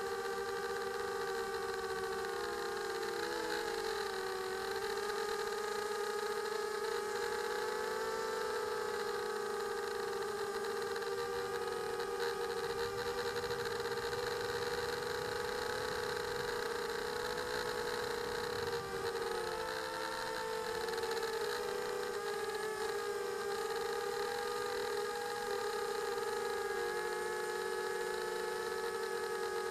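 Electric motors and propellers of a small multirotor drone, heard from its onboard camera: a steady whine whose pitch wavers as the motors change speed. Several close tones split apart and rejoin around four and twenty seconds in.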